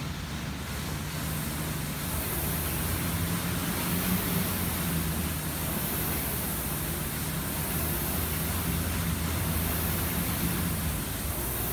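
Concept2 air rower's flywheel fan whooshing steadily under hard rowing, swelling in an even rhythm with each stroke, over a low hum.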